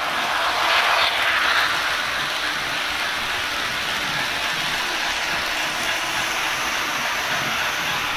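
Märklin HO-scale EST Class 13 model steam locomotive and its Orient Express coaches running on metal model track, a steady rolling and running noise. It is loudest about a second in, as the locomotive passes close by.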